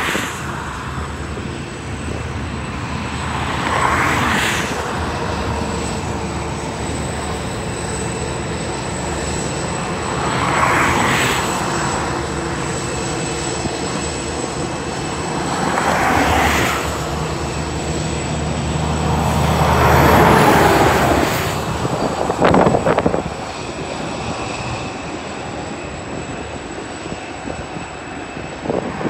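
Two 81 class diesel-electric locomotives hauling a freight train, a steady low engine drone that stops about three-quarters of the way through as the container wagons roll by. A broad rushing noise swells every five or six seconds, and there is a short burst of clattering just after the drone ends.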